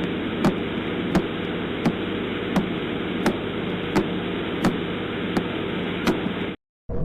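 Radio recording of a pulsar played as sound: steady static hiss with a sharp click about every 0.7 seconds, each click one pulse of the spinning neutron star. It cuts off suddenly near the end.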